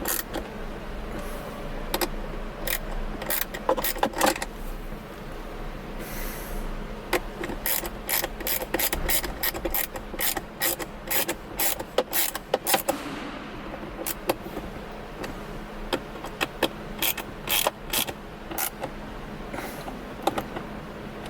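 Hand ratchet clicking in quick runs of strokes as screws are driven into a center console armrest lid, with short pauses between runs.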